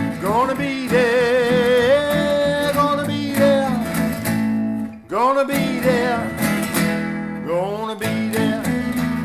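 Background music: a country-style song on strummed acoustic guitar, with long held, wavering melody notes.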